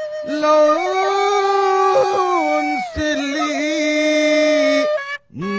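Traditional Sasak tembang sung by a solo voice in slow, drawn-out phrases, holding long notes with wavering, sliding ornaments. The voice breaks off briefly about three seconds in and again near the end.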